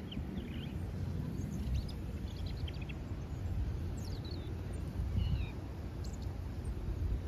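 Small songbirds chirping: short, high, scattered chirps and a few falling slurred notes, over a steady low background rumble.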